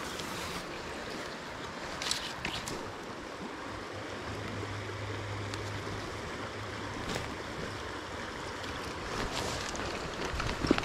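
Creek water running over a shallow riffle: a steady rushing, with a few short knocks, the loudest near the end, and a faint low hum for a couple of seconds in the middle.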